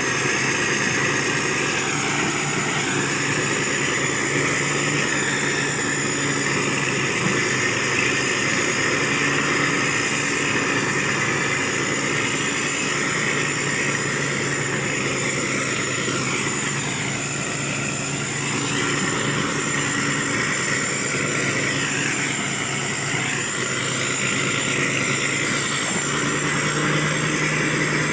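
Motor grader's diesel engine running steadily as the machine travels at an even pace, with a wavering whine above the engine note.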